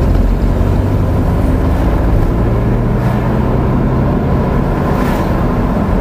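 Car engine and road noise heard from inside a moving car: a steady low drone.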